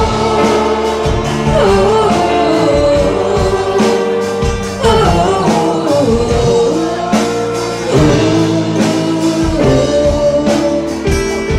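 A live band playing music: acoustic guitar and keyboard with a steady beat, and singing over the top.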